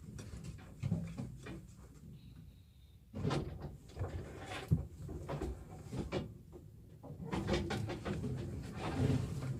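Paint being stirred and mixed in its container: irregular knocks and clicks with stretches of scraping, busier in the second half.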